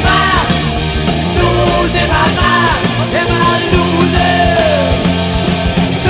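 Heavy metal band playing loudly, with distorted electric guitars, bass and drums, and pitched notes bending up and down above the band; one note slides downward about four seconds in.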